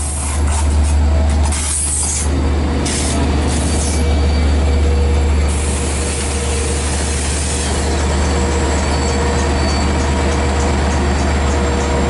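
LIRR DE30AC diesel-electric locomotive running with a steady low engine drone as it rolls slowly past at close range, with a few short hisses in the first few seconds.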